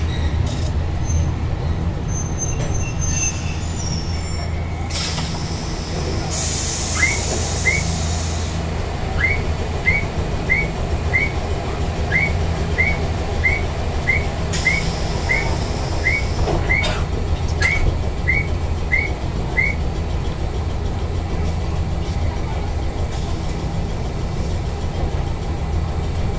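Tram standing still: a steady low hum, with two bursts of air hiss from the air brakes, about five and fifteen seconds in. A string of short high chirps repeats, two or three a second, through the middle.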